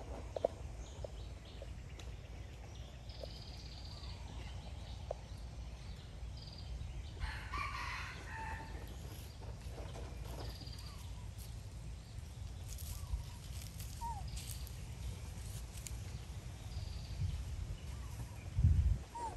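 Outdoor ambience with a steady low rumble and scattered short, high bird chirps. About seven seconds in, one louder animal call lasts about a second and a half. A loud low thump comes just before the end.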